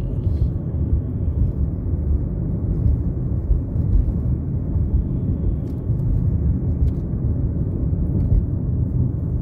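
Steady low rumble of tyres and engine heard inside a moving car's cabin while cruising at road speed.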